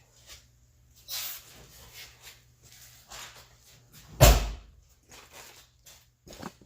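Driver's door of a 1993 Ford Mustang worked by its new exterior handle: a latch and handling noise about a second in, then the door shut with one loud, deep thump just after four seconds.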